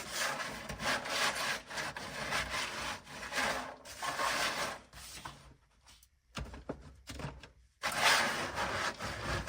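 Sound deadener on a car's sheet-metal floor, made brittle by dry ice, being pushed and scraped around in repeated strokes with a cracking, scraping noise. It briefly drops off a little past the middle, with a few sharp clicks, then picks up again near the end.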